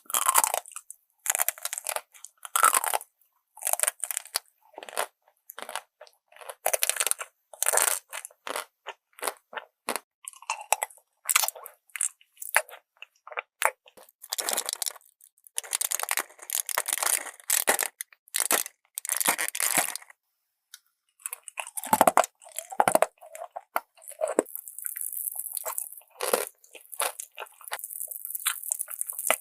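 Close-miked eating: crunchy bites and chewing in short irregular bursts with gaps between. A steady high hiss comes in during the last few seconds.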